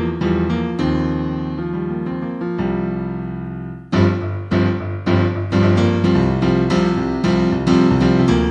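Piano music: chords and melody notes, with one chord held and fading out about three seconds in, then loud chords struck again about four seconds in.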